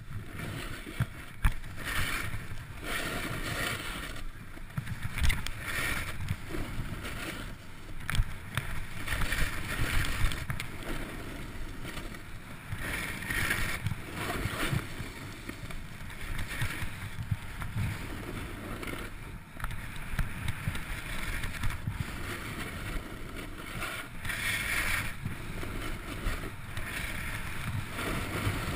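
Wind and handling noise on a helmet-mounted action camera: uneven bursts of rustling and scuffing of clothing, snowboard and snow close to the microphone, with a few sharp knocks.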